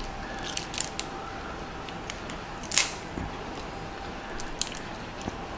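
Lobster tail shell being pried apart by hand, giving a few small sharp clicks and crackles, the loudest about three seconds in, over a steady low hiss.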